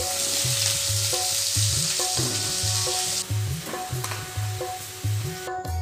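Food sizzling as it fries in a pan, an even hiss that cuts off suddenly about three seconds in. Background music with a low repeating beat runs underneath.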